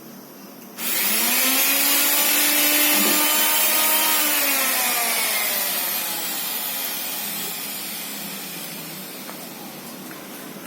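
Wipro 1800 W sliding miter saw's electric motor switched on about a second in, spinning up sharply to a high whine and running for a couple of seconds, then winding down with a falling whine as the blade coasts to a stop after switch-off.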